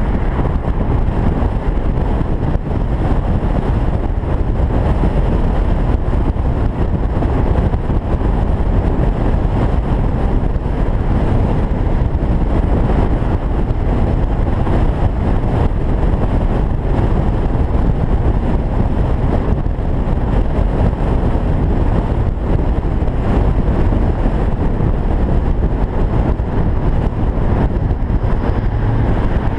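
Steady rush of wind and road noise from an open-top convertible cruising at highway speed, heaviest in the low end.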